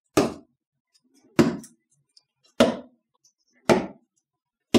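Darts striking a wall map on a board: five sharp thuds, about one a second.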